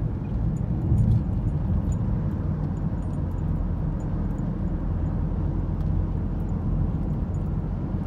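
Steady low rumble of a car driving along, engine and tyre noise heard from inside the cabin.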